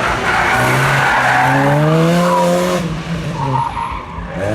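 Classic rally car's engine revving hard as it accelerates past, its pitch climbing for about two seconds over the hiss of its tyres on the road. The engine sound falls away sharply about three seconds in.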